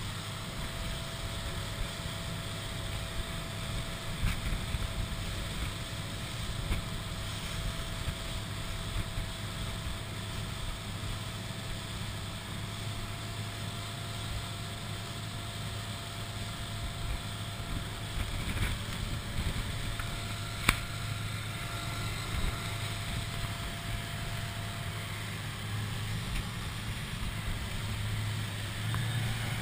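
Boat with an electric outboard running at speed: a steady rush of wake water and wind, quiet with no combustion engine sound, over a faint steady tone. A single sharp click about two-thirds of the way through.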